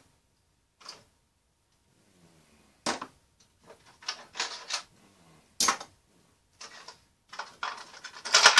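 Hand tools handled on a wooden workbench: metal pliers set down with a sharp clack about three seconds in and again at about five and a half, with rustling handling in between and a quicker clatter of several tools near the end.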